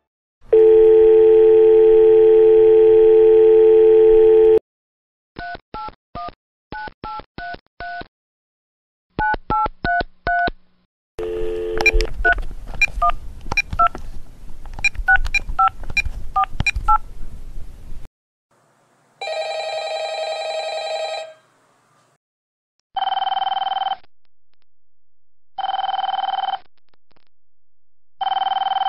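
A sequence of telephone sounds. First a steady dial tone for about four and a half seconds, then three runs of touch-tone keypad beeps dialing a number, the last more ragged with a short dial tone before it. Then a phone ringing: one long ring burst, then separate rings about every two and a half seconds.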